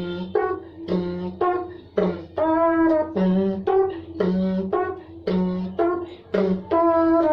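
A person's voice imitating a TV show's background music, beatbox-style: a short phrase of pitched hums and held notes repeating about once a second over a steady low hum.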